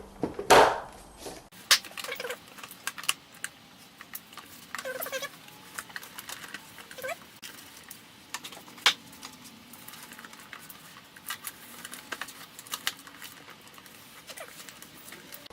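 Plastic airbox and intake pipe being pushed and worked back into place in a car's engine bay: scattered clicks and knocks, with a few short squeaks and one louder knock about nine seconds in.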